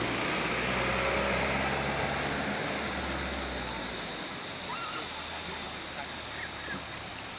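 Shallow river water running steadily over a rocky bed, with faint distant voices of people playing. A low hum underneath fades out about halfway through.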